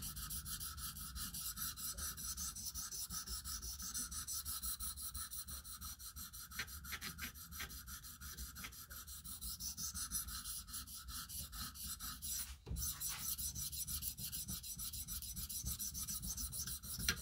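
600 grit stone on a KME guided sharpener rubbing along the edge of an M390 steel knife blade in quick, steady back-and-forth strokes, about four a second, refining the scratch pattern. The strokes break off briefly about thirteen seconds in.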